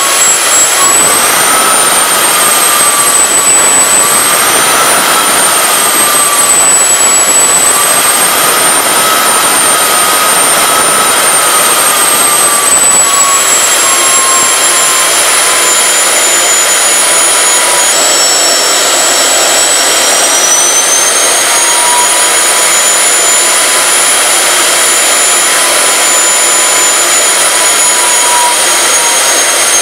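Homemade turbocharger-based turbojet engine running loudly on LPG and kerosene, a steady rush with a high turbine whine. The whine's pitch wanders up and down as the sensitive throttle valve is worked, and drops noticeably a little past halfway.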